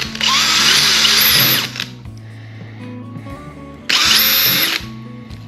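Makita cordless drill boring small holes in a PVC T-fitting, in two bursts: a longer one of about a second and a half at the start, and a shorter one of about a second near the four-second mark.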